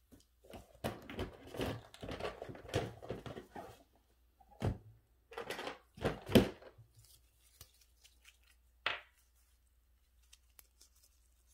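Rustling and crinkling from hands handling small materials at a workbench, followed by a few knocks on the work surface, the loudest about six seconds in and a last one near nine seconds.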